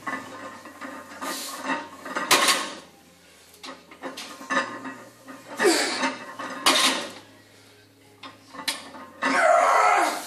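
Heavily loaded barbell's iron plates clanking and rattling several times as a below-the-knee deadlift is pulled from blocks, with a loud, noisy sound about a second long near the end.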